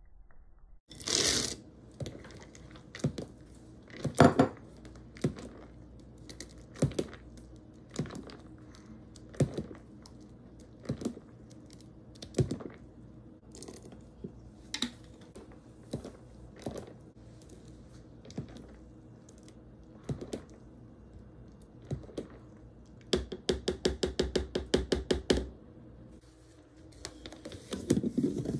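A spoon knocking against the side of a mixing bowl as thick batter is stirred, one knock every second or so, then a quick run of about twenty rapid taps as it is beaten fast. Near the end there is louder clattering as a lid is fitted onto the bowl.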